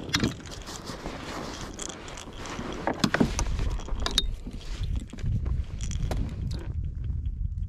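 Clicks and rattles of fishing tackle (a metal lure, hook and pliers on a coiled lanyard) being handled while a hook is worked out of a blue catfish's mouth, loudest about three seconds in. Under it runs a low wind rumble on the microphone that grows stronger from about three seconds on.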